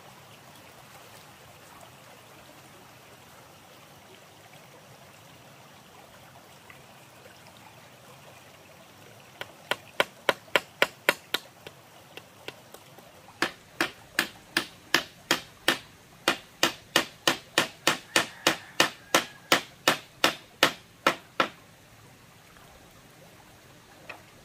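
Hammer blows nailing bamboo slats onto a wooden frame. A quick run of strikes comes about nine seconds in, then a short pause, then a longer even run of about three blows a second, all over the steady rush of a shallow stream.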